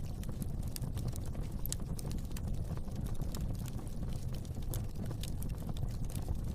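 Fire burning in a fireplace, crackling with many small, irregular sharp pops over a steady low rumble of the flames.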